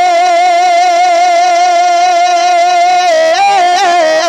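A man singing a naat unaccompanied, holding one long high note with a steady vibrato, then turning it in quick melodic runs about three seconds in.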